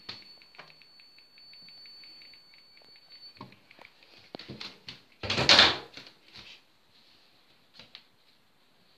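Handling noises around a glass terrarium: light clicks and taps, a knock, then one loud rustling thud a little after five seconds, as the enclosure is shut and the phone is moved, with a faint steady high whine that stops about three and a half seconds in.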